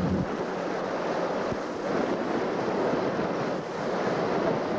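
Steady wind buffeting the camcorder microphone aboard a moving boat, with water rushing alongside.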